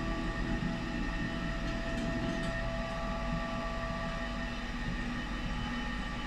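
Enviro EF-III pellet stove running its automatic startup with the pellets not yet lit: a steady mechanical hum from its blower motors, with several steady tones over it.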